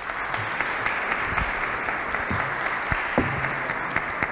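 Audience applauding: many hands clapping in a steady, even stream.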